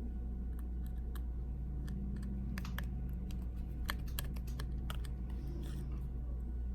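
Small irregular clicks and light taps of tools and metal parts being handled on an iPhone 6 Plus screen assembly, such as the metal shield plate being pressed into place, over a steady low hum.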